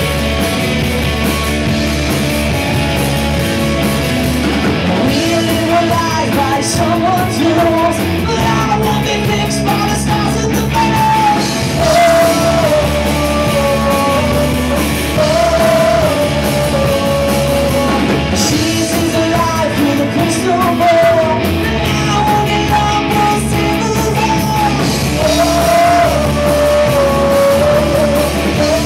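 Live rock band playing: electric guitars, electric bass and drum kit, with a man singing lead from about five seconds in.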